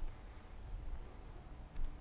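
Footsteps through grass and weeds, with two louder thuds about two seconds apart, over a low steady rumble on the microphone.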